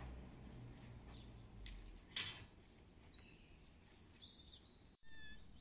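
Quiet outdoor yard ambience with small birds chirping, and a single sharp snap about two seconds in.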